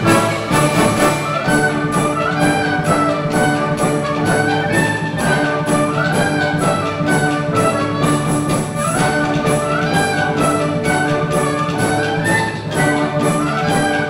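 Concert band playing an Irish-style arrangement: full brass and woodwinds carrying a melody over a steady percussion beat of about three strokes a second.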